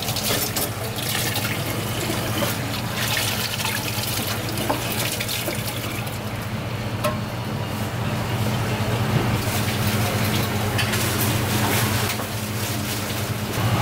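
Steady running water, with a low steady hum underneath and a few small clicks.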